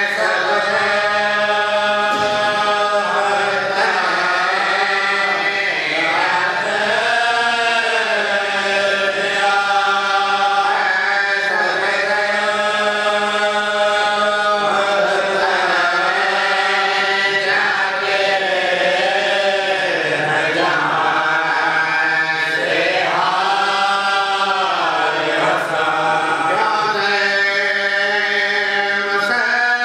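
A man's voice chanting a Shia mourning lament (noha) into a microphone, in long held notes that rise and fall.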